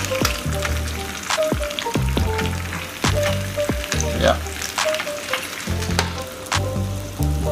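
Chicken pieces sizzling in a glass baking dish hot from the oven, over background music with a steady stepping bass line.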